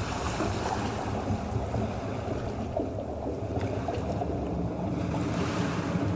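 Ocean waves sound effect: steady surf washing, with a wave swelling and breaking about five seconds in.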